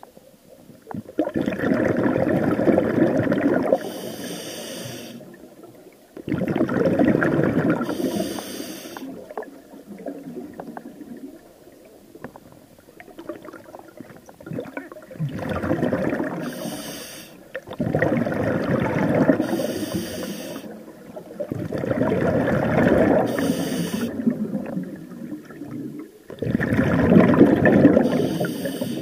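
Scuba diver breathing through a regulator underwater: six gushes of exhaled bubbles, each lasting two to three seconds, come every four to five seconds, and several end in a short high hiss.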